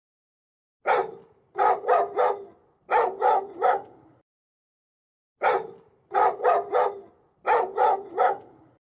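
A dog barking: a run of seven short barks, one and then two quick groups of three, then the same run again after a pause of about a second.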